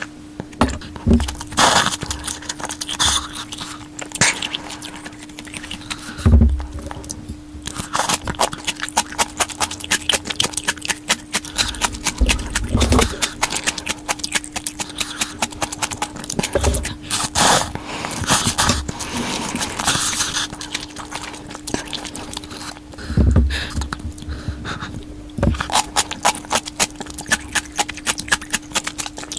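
Close-miked eating sounds from a cup of instant noodles: dense, irregular wet chewing clicks and smacks with several heavier slurps. A steady low hum runs underneath.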